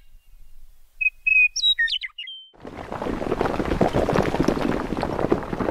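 Birds chirping in short whistled phrases. About two and a half seconds in, a dense crackling, crumbling noise of breaking stone and falling rubble starts; it is the louder of the two sounds.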